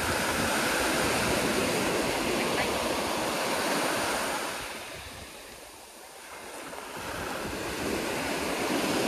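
Small surf waves breaking and washing up a sandy beach. The wash is loud at first, dies down about five to six seconds in, then swells again as the next wave breaks.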